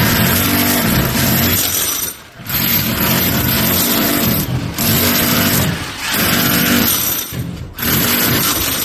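Monake electric hammer drill running in loud bursts with a dense hammering rattle, cut off briefly several times between runs.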